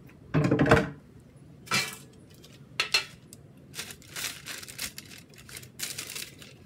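Kitchenware being handled: a loud clatter about half a second in as a plastic cutting board and a metal baking tray knock together on the counter, then two sharp knocks. After that comes a run of light paper crinkling and scraping as the eggplant is settled onto the paper-lined tray.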